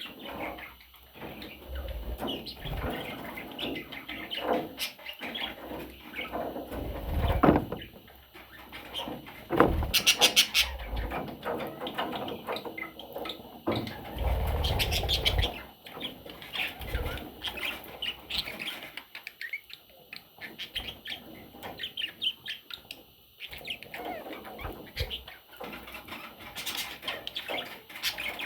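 Budgerigars chirping in many short, scattered calls, with a few louder bursts about a quarter, a third and half of the way through.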